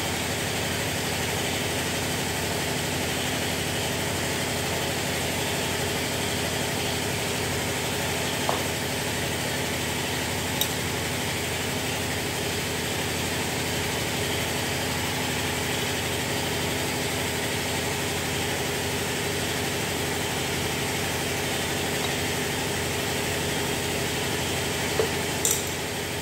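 Compressed-air spray gun hissing steadily as it blasts a diesel fuel filter housing clean, with a few light clicks.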